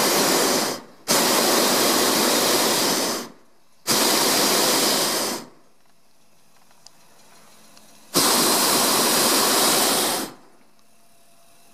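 Hot-air balloon's propane burner firing in four blasts of about one and a half to two seconds each, with short gaps and a longer pause before the last blast, which comes about eight seconds in. The burner is firing to control the descent on the landing approach.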